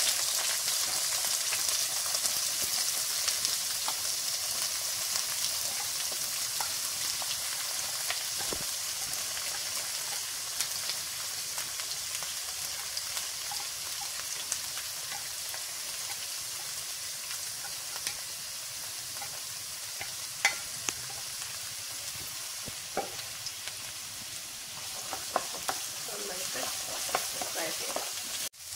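Shallots and fried coconut pieces sizzling in hot oil in a pan, the hiss easing slowly as they soften. A spoon clicks and scrapes against the pan now and then, more often near the end as they are stirred.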